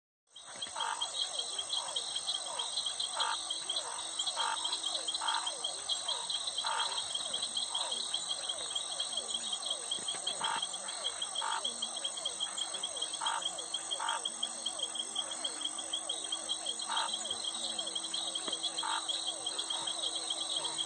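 A chorus of frogs calling in short notes repeated at irregular intervals, over a dense, continuous high trilling of insects. It starts abruptly just after the opening.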